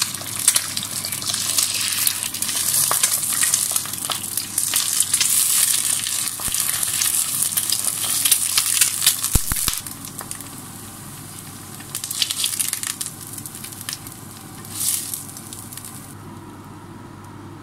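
Eggs frying in hot oil in a frying pan, sizzling and crackling loudly for about the first ten seconds, then quieter with a few short bursts of sizzle. A couple of knocks come about halfway through.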